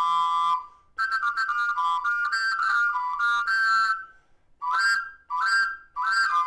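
Frog-shaped whistle, a reproduction of an ancient Maya instrument, blown in short, wavering notes with brief pauses between them, several close tones sounding at once. A long note near the end sinks slightly in pitch.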